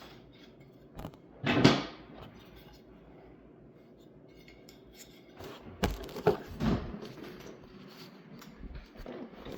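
Handling and cutting of wooden trim pieces: a few separate knocks and clatters, the loudest about a second and a half in, then a short cluster of knocks around six seconds in.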